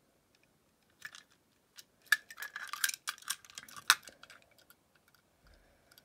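Two die-cast metal toy cars being turned over in the hands: a run of small clicks and light scrapes as they knock against each other and rub on fingers. It starts about a second in, with the sharpest click near four seconds in.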